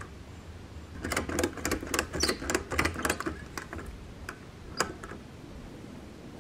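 Ratchet strap being cranked tight: a quick, uneven run of metal clicks for about two and a half seconds, then a few single clicks.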